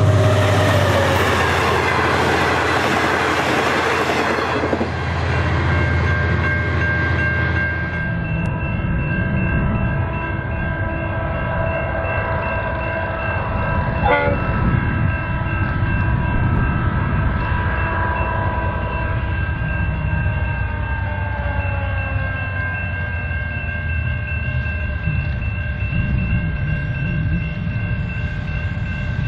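V/Line A class diesel-electric locomotive hauling a passenger train past, with engine rumble, wheel noise on the rails and several steady tones, some of which fall in pitch about three quarters of the way through as it goes by.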